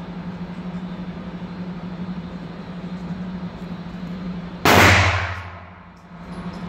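A single loud handgun shot about two-thirds of the way in, echoing briefly in the enclosed range, over a steady low hum.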